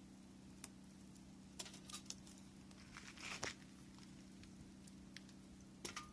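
Wood campfire crackling faintly, with scattered sharp pops and a small cluster of them about three seconds in, over a steady low hum.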